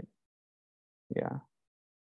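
A brief snatch of speech, a word or two, about a second in; the rest is dead silence.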